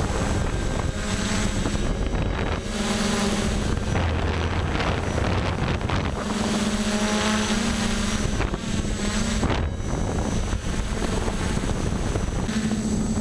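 Electric motors and propellers of a multirotor drone humming steadily in flight, the pitch stepping up and down several times as the throttle changes, with wind buffeting the microphone.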